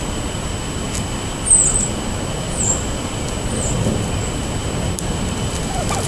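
Steady low rumble of distant road traffic, with three short high chirps from a bird about a second apart in the first half.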